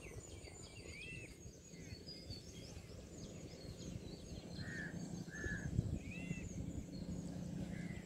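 Several small birds chirping and calling in short notes and little arched calls, scattered throughout, over a steady low rumble.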